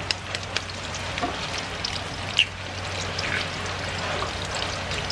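Bacon frying over low heat in a pan, a steady sizzle with many small crackling pops of spitting fat. A sharper crack about two and a half seconds in as an egg is broken on the bowl.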